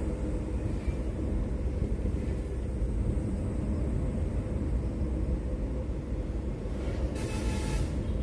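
Steady low rumble of a moving car's engine and tyres on the road, heard from inside the cabin. Near the end a pitched sound lasting about a second cuts in.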